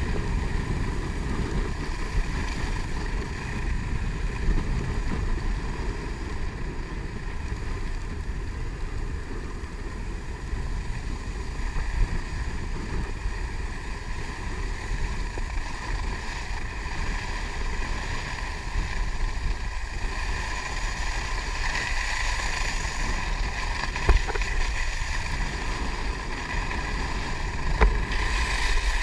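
Wind rushing over a camera microphone while skiing fast downhill, mixed with the steady hiss and scrape of skis carving on groomed snow. A couple of short knocks come near the end.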